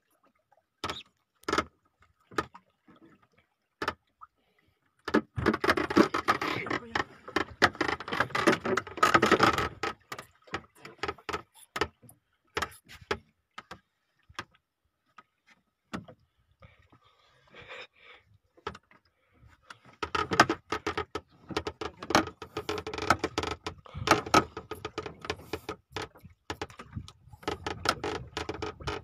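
Fishing reel being cranked in bursts while fighting a hooked marlin: dense runs of rapid mechanical clicking with a faint steady whine, broken by pauses of scattered single clicks.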